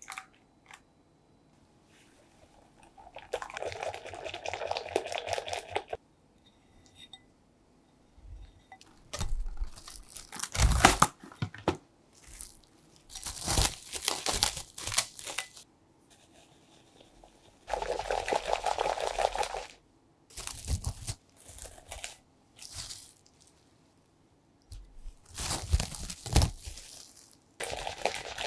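Plastic cling film crinkling and rustling over a glass bowl, and a wire whisk clattering against the glass as lemon curd is stirred, with a dense run of whisking near the end. Twice a steady hum runs for two or three seconds, a microwave warming the curd between stirs.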